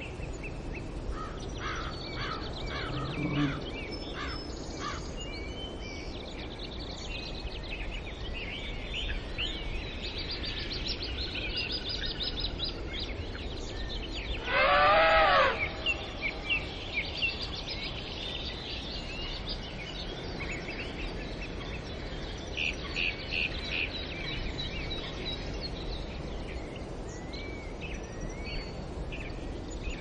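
Natural ambience of many birds chirping and calling over a steady background hiss, with one loud call of about a second, wavering in pitch, roughly halfway through.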